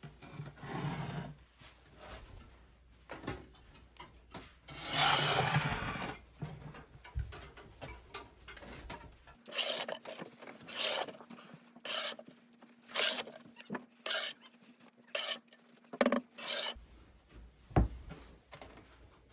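Metal ash scoop scraping and scooping ashes inside a wood stove's firebox: scattered rasping scrapes, one louder long scrape about five seconds in, then a run of short strokes roughly one a second in the second half.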